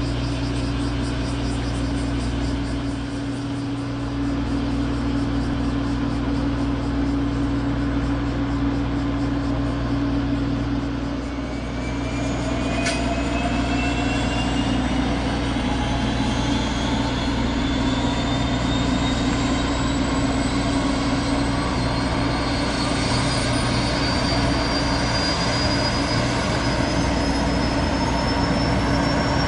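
Boeing 929 Jetfoil's gas turbine starting while the vessel lies moored, over a steady low drone of its running machinery. About twelve seconds in a whine begins and climbs steadily in pitch as the turbine spools up toward departure.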